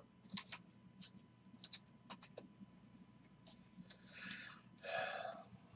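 Stack of glossy trading cards being handled and flipped through by hand: a scatter of small sharp clicks and snaps, then two longer rustling swishes about four and five seconds in.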